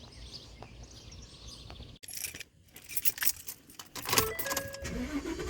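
Keys jangling and clicking, a dense run of small metallic rattles in the second half.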